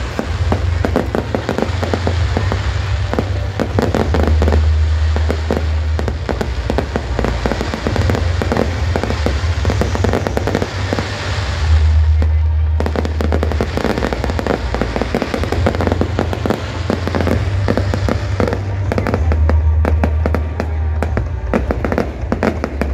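Aerial fireworks display: a dense run of rapid pops and crackling shell bursts over deep booms, briefly thinning about twelve seconds in.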